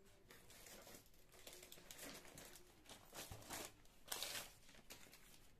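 Brown kraft packing paper crinkling and rustling as it is handled in a cardboard box, in irregular bursts, loudest about four seconds in.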